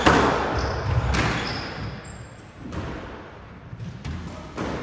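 Squash ball struck by rackets and hitting the court walls, each hit a sharp crack that echoes in the court, the last hard hit about a second in. Short high shoe squeaks on the hardwood floor come between the hits, and after that only a few softer knocks as the rally ends.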